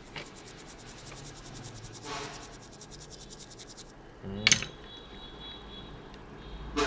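Small stiff brush scrubbing a phone's circuit board in rapid, even strokes. The scrubbing stops about four seconds in, followed by a short clatter of tools on the bench.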